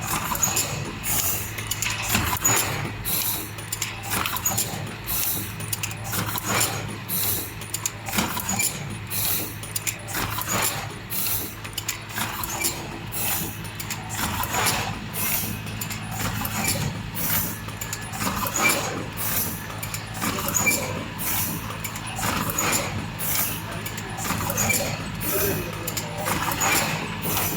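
Horizontal form-fill-seal packaging machine for stand-up spouted pouches running: a steady motor hum under a quick, regular clatter of clicks and hisses from its stations cycling.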